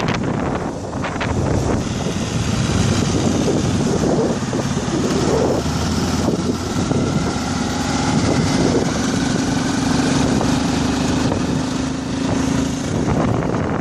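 Motorbike engine running while riding a rough dirt road, with wind buffeting the microphone; a steady engine hum stands out from about halfway and drops away near the end.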